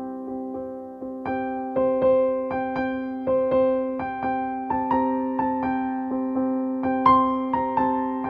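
Background music: a gentle piano melody with notes struck about twice a second over held chords.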